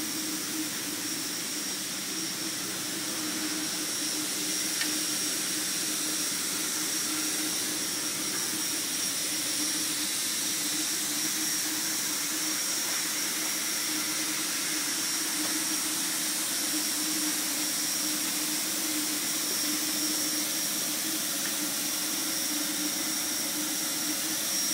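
A machine running steadily: a continuous rushing hiss with a constant low hum and a faint high whine that do not change.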